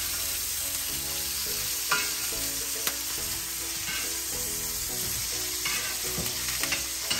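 Ribeye steak sizzling in hot beef fat in a Le Creuset pan, a steady frying hiss, as the fat is spooned over the meat, with a few sharp clicks of the spoon against the pan.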